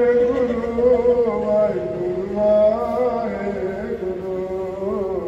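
A man chanting a Sikh devotional chant into a handheld microphone, holding long, drawn-out notes that waver up and down.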